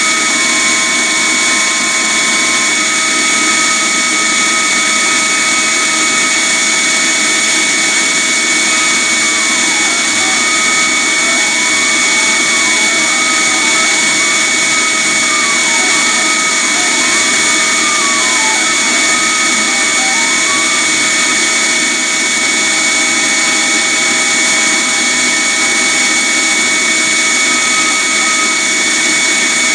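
A vacuum running steadily with a high whine, under the CNC router's stepper motors. From about ten to twenty seconds in, the stepper motors sing in a string of rising and falling tones as the gantry moves the diode laser through curves.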